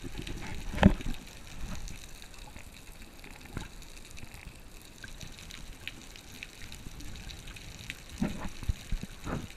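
Underwater sound picked up by a camera while snorkeling: a muffled watery hiss with scattered faint clicks, a loud knock about a second in, and a few more knocks near the end.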